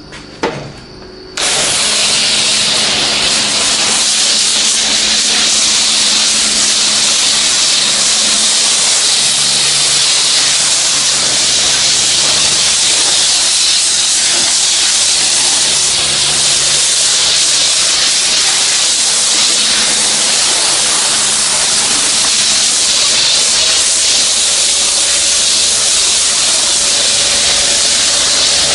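Self-service car wash high-pressure spray wand: after a short click, it bursts into a loud, steady hiss about a second and a half in and keeps spraying evenly, with a faint pump hum beneath.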